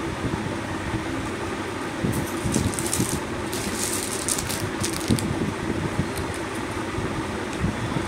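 Clear plastic packets rustling and crinkling in a few short bursts, a couple of seconds in, over a steady fan hum.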